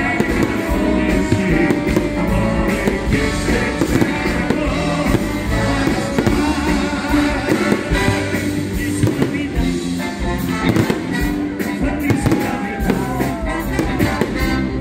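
Fireworks display going off, with repeated bangs and crackling bursts, over loud music.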